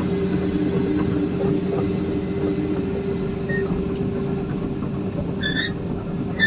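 Heavy diesel engine of an excavator or dump truck running steadily with a low drone. A short high-pitched chirp sounds about five and a half seconds in.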